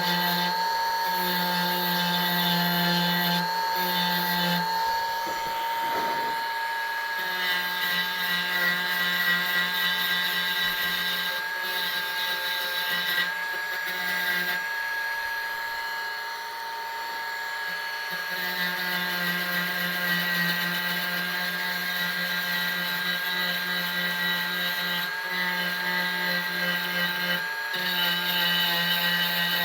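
Dremel rotary tool spinning a wire brush against plastic, brushing the scorched discoloration off plastic-weld seams. It runs with a steady high whine, and a lower hum drops out briefly several times.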